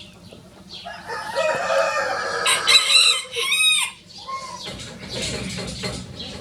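Rosecomb bantam rooster crowing: one long crow starting about a second in and lasting about three seconds, dropping in pitch at the end, with higher, sharper bird calls overlapping its last part.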